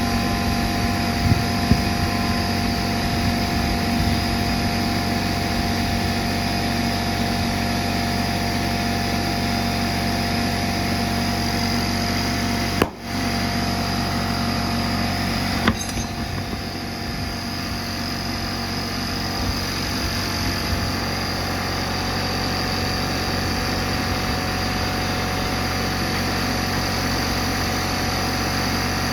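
A machine running with a steady hum and a fixed high whine, with a brief sharp break in the sound about thirteen seconds in.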